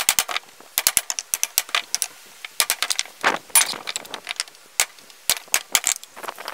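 Pallet boards and wooden blocks knocking and clattering together as they are handled and pulled apart on a workbench. The knocks come as a quick, irregular run of sharp wooden hits, with a longer scraping rustle a little past halfway.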